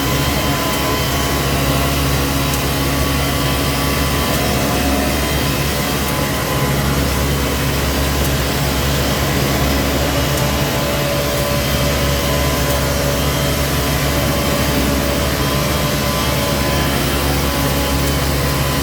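Construction machinery running steadily during a concrete pour: a heavy engine hum with several steady tones that stays at an even level throughout.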